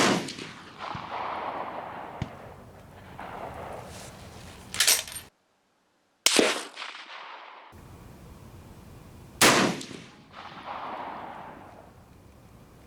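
Rifle shots: three loud reports, one at the start, one about six seconds in and one about nine and a half seconds in, each trailing off in echo, with a lighter bang just before five seconds.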